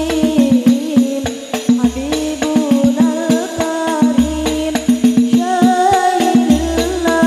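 Girls' voices singing a sholawat together through microphones, over a backing track of quick rattling hand-percussion strikes and a deep bass note that comes and goes. A higher voice line enters a little over five seconds in.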